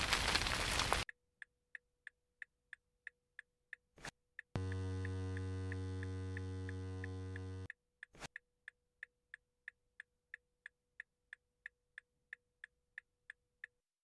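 A noisy hiss cuts off about a second in, leaving a clock ticking about three times a second over a faint hum. A click switches on a loud, low electric buzz that fades slightly over about three seconds and stops with another click, while the ticking carries on until it stops near the end.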